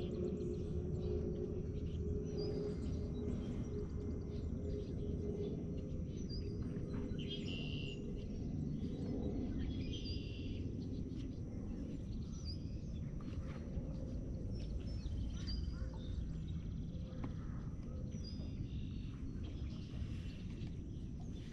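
Birds calling in short chirps that come back every couple of seconds, over a steady low outdoor rumble.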